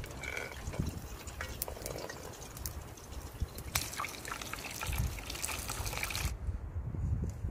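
Dough balls deep-frying in hot oil in a cast-iron pot over a campfire: a crackling sizzle of bubbling oil. The sizzle gets busier a few seconds in, then cuts off suddenly near the end, leaving a low rumble.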